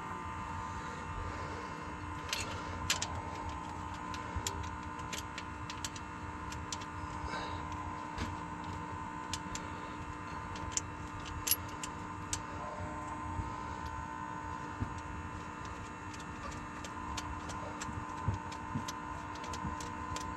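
Scattered sharp metallic clicks and taps of hand tools working on the injectors of a diesel engine, over a steady hum; near the end the clicks come as a run of evenly spaced ticks.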